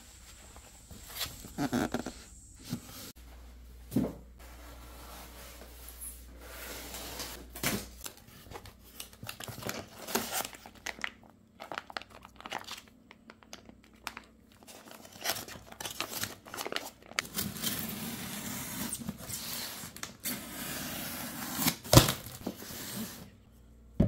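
Irregular rustling and crinkling with scattered knocks, and one sharp knock near the end.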